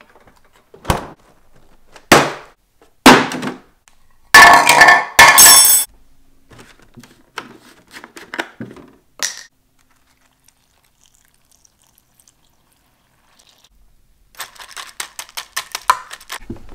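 Kitchen handling while a bowl of cereal is made: three loud knocks as the milk jug and other things are set down on a countertop, then a pour of about a second and a half, and a few small clicks. Near the end comes a quick run of clinks from a metal spoon in a plastic cereal bowl.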